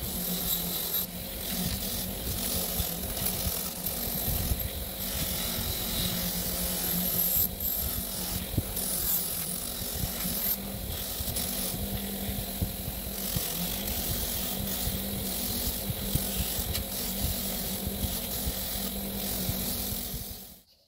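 A power tool running steadily with a continuous rasping, abrasive sound of metal being worked, cutting off abruptly near the end.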